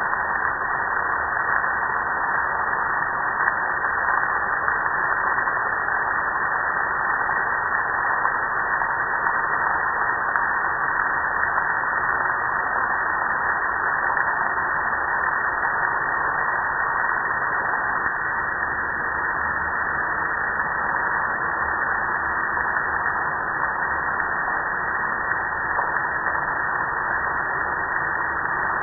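Water from a garden hose spray nozzle hitting a gas grill's metal lid and body and running off it, a steady, muffled hiss of spray.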